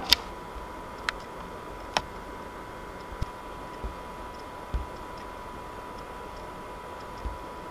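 A few sharp isolated clicks, four in the first three seconds, and some soft low knocks later, over a steady hiss with a thin steady whine.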